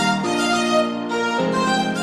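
Background music: a violin melody over a steady string and keyboard accompaniment.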